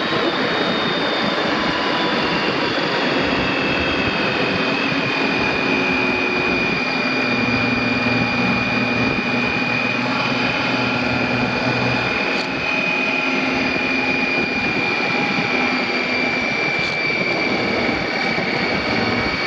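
BMW K1600 GTL touring motorcycle with its inline-six engine, riding along: a steady mix of wind, road and engine noise. A thin high whine runs through it, sinking slowly in pitch.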